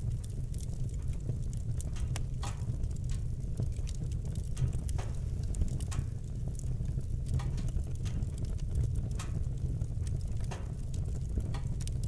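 Fire burning in a fireplace, crackling with irregular sharp pops over a steady low rumble.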